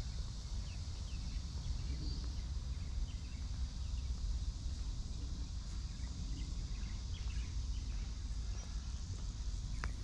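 Outdoor garden ambience: a steady high insect drone with many short, faint bird chirps scattered through it, over a constant low rumble.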